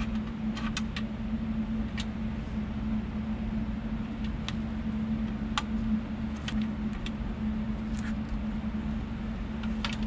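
Small clicks and taps of wire connectors and terminals being fitted onto the back of a metal instrument cluster, a dozen or so at irregular intervals, over a steady low hum.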